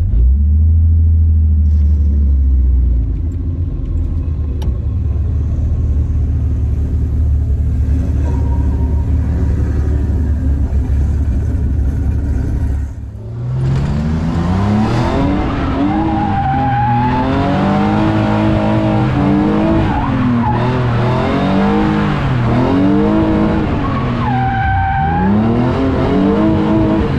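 Drift car's engine idling with a steady low rumble. About thirteen seconds in the sound drops out briefly, then the engine revs rise and fall again and again as the car drives off.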